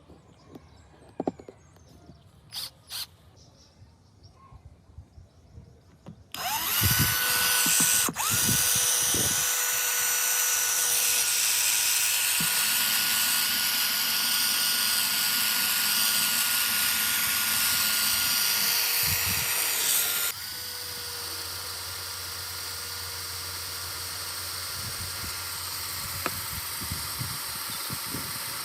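Restored Makita cordless drill test-run: a few light clicks, then the motor starts about six seconds in with a steady whine. It stops briefly and starts again, runs evenly, and about two-thirds of the way through drops to quieter running that goes on.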